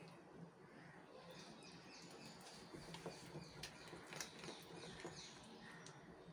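Faint squelching and scraping of a silicone spatula stirring thick semolina cake batter in a steel bowl, with scattered small clicks.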